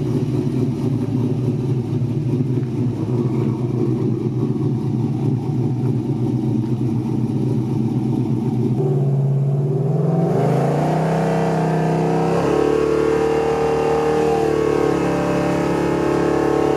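Truck engine running steadily, then, about nine seconds in, accelerating with its pitch rising and changing as it pulls away. This is a test drive of a freshly installed replacement transmission.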